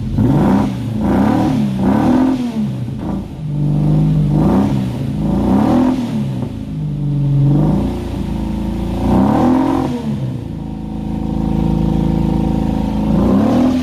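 Holden VK Commodore's 202 straight-six being blipped again and again, the revs rising and falling every second or two, then held at a steadier note before one more rev near the end. The engine is being kept revving to clear out after more than eight years of sitting.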